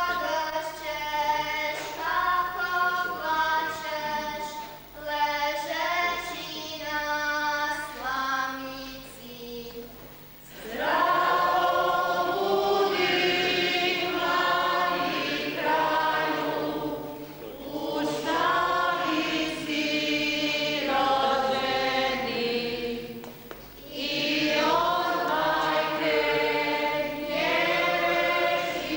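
Church choir singing a hymn in sustained phrases. The singing thins out and pauses briefly about ten seconds in, then comes back in louder and fuller.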